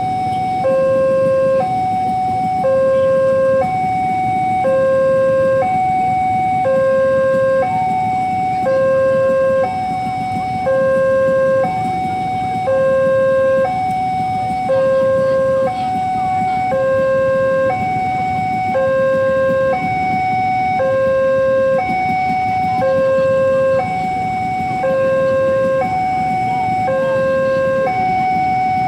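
Railway level-crossing warning alarm sounding a steady electronic two-tone, high and low notes alternating about once a second, while the crossing is closed for an approaching train. A low rumble of waiting motorcycle engines idling lies underneath.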